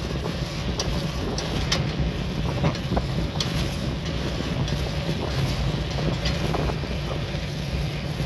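Wind buffeting the microphone and road rumble from a moving bicycle, steady throughout, with scattered sharp clicks and rattles at irregular moments.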